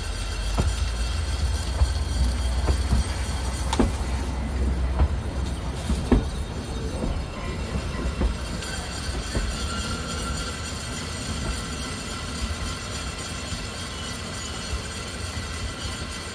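Lookout Mountain Incline Railway's cable-hauled funicular car rolling past close by: a low rumble with irregular sharp clicks and knocks from the wheels on the rails. It is loudest over the first six seconds, then eases to a steadier, quieter rumble as the car moves off.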